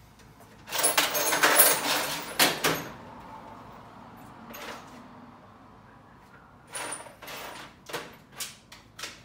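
Off-camera clatter and rattling of tools being rummaged through, loudest in a burst about a second in, then a single knock and a run of short clicks and knocks near the end.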